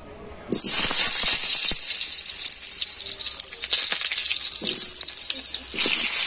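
Cut potato pieces dropped into a small amount of hot oil in a kadai, sizzling and crackling suddenly about half a second in. The sizzle eases a little, then swells again near the end as more pieces go in.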